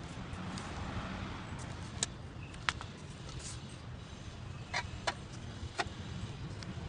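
A handful of sharp clicks and knocks as the homemade PVC-and-iron-rod rod holder is handled and turned, over a steady low rumble.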